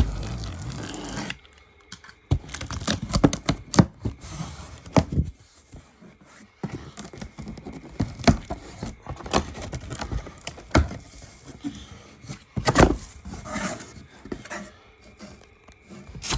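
Cardboard box and packaging being opened and handled: irregular scraping, rustling and tearing with sharp knocks and thuds.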